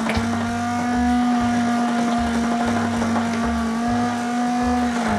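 Immersion blender running steadily in a glass bowl, puréeing avocado soup with vegetable stock and olive oil until it turns smooth; a steady motor hum whose pitch wavers slightly as it works the thick mixture.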